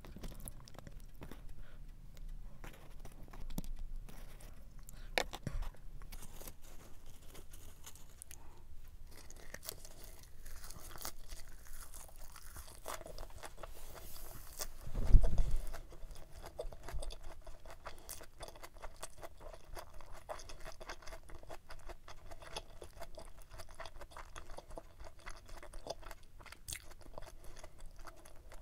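Close-miked chewing with many small crisp clicks and crunches, from eating a tuna-mayo rice ball wrapped in perilla leaves. About halfway through comes one louder, low thump.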